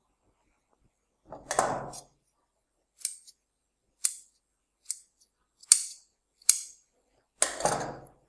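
Tailor's scissors snipping: five short, sharp snips about a second apart. A longer rustle of handled fabric comes before them and another near the end.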